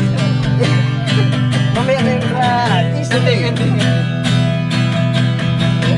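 Acoustic guitar strummed in a steady rhythm of chords, with a voice heard briefly about halfway through.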